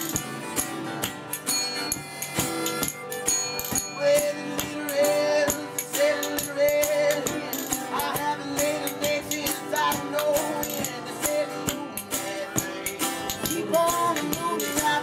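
Acoustic folk-blues band playing: two acoustic guitars, one a resonator guitar, strummed and picked, with spoons clicking a fast rhythm throughout. A man's voice comes in singing about four seconds in.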